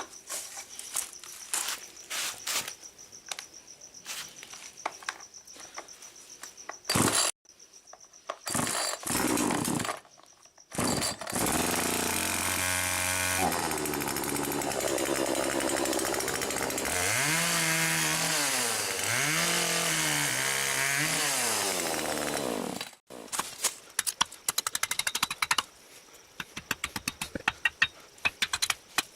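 Two-stroke chainsaw starting after two short bursts, then running steadily for about twelve seconds. It is revved three times, the pitch rising and falling each time, before it cuts off suddenly. Light scattered clicks come before and after it.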